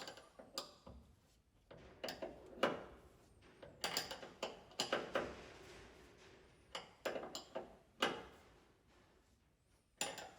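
Hand tools working a threaded-bar Rivnut setting tool: a string of irregular metallic clicks and clanks, some ringing briefly, as the nut is wound down against heavy resistance to squeeze the Rivnut into place.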